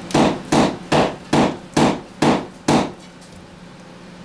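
A hammer striking repeatedly, seven quick blows at about two and a half a second, then stopping. The blows are aimed at a stuck seat bolt that has a broken bit lodged in it.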